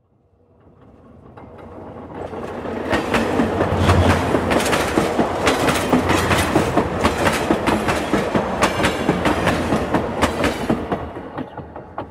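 A train passing by: a rumble that swells up from silence, rapid clickety-clack of wheels over rail joints at its loudest, then dies away near the end.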